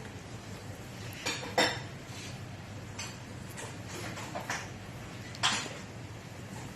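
Several scattered sharp clinks and knocks of hard objects, the loudest about a second and a half in and again near five and a half seconds in.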